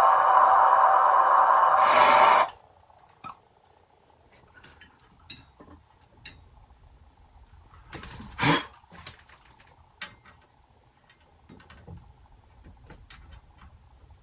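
Plumbing torch flame hissing steadily while sweat-soldering a copper pipe joint, shut off suddenly about two seconds in; then small clicks and a single knock about eight seconds in as the work is handled.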